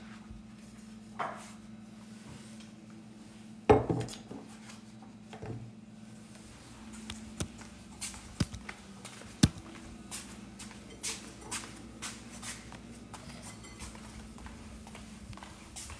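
Kitchen clatter: scattered knocks and clinks of dishes and pans being handled, the loudest knock about four seconds in, over a steady low hum.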